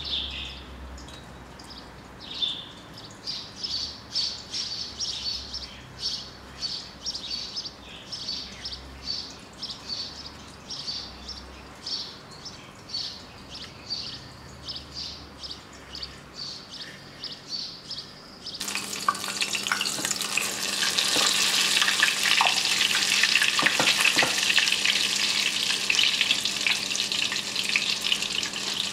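Breaded chicken cutlet frying in hot oil: a steady sizzle with crackling that starts suddenly about two-thirds of the way in and is the loudest sound. Before it comes a run of short high-pitched sounds, about two a second.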